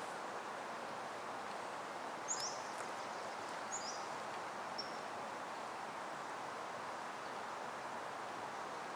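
Forest ambience: a steady rush of background noise, with a few short, high bird chirps between about two and five seconds in.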